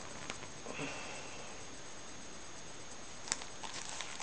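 Faint rustling and light tapping from a large paperback book being handled and held up, with one sharp click about three seconds in.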